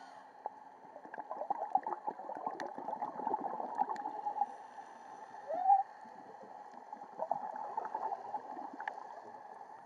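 Muffled underwater bubbling and crackling heard through a camera's waterproof housing, typical of a scuba diver's exhaled bubbles. It comes in two bouts with a quieter gap between them, and a short, loud squeak that rises then falls about five and a half seconds in.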